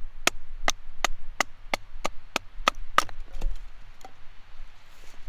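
Habilis Bush Tool knife chopping into a piece of pine: about ten sharp strikes on wood, roughly three a second, then two fainter ones before it stops about four seconds in.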